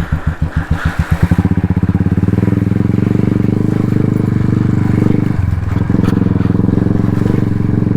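Royal Enfield Classic 350's single-cylinder engine: separate, evenly spaced thumps at first, then about a second in it picks up speed into a steady run as the bike pulls away, with a brief dip in the note a little past halfway.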